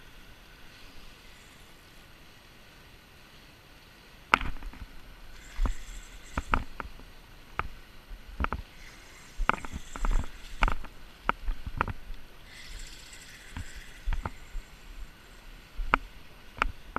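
Irregular knocks and clicks, starting about four seconds in and coming roughly once or twice a second: footsteps and gear knocking on the rocks of a riverbank, heard close up, over a faint steady rush of river water.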